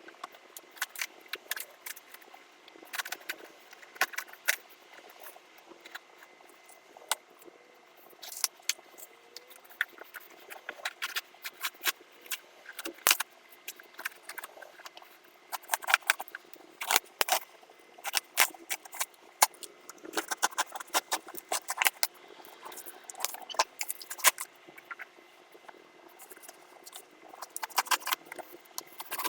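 Parts and packaging of an OX CNC machine kit being handled: irregular clicks, rattles and rustles of small hardware and wrapping being unpacked.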